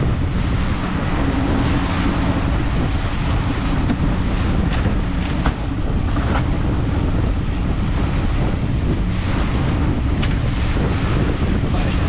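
Wind buffeting the microphone over a boat under way: the Suzuki outboard running steadily at trolling speed and the wake rushing behind. A few light knocks come through in the middle and near the end.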